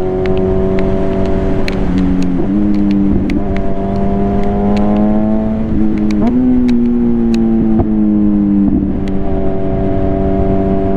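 Kawasaki Z900's 948 cc inline-four running through an Akrapovič full-system exhaust while riding, holding a fairly steady pitch with brief dips and small rises a few times as the throttle changes. The rider suspects it may be a little too loud because the exhaust is not yet torqued to spec.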